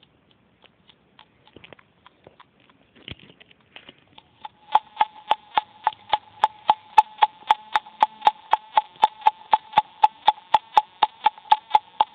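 Circuit-bent talking alarm clock's sound chip glitching through its small speaker: scattered faint clicks, then about four seconds in, a looping stutter, a steady electronic tone chopped by sharp clicks about four times a second.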